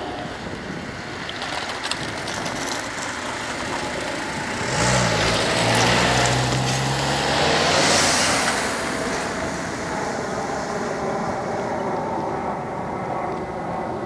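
Road traffic passing close by: a car and a van drive past, engine and tyre noise swelling to its loudest between about five and nine seconds in, then fading.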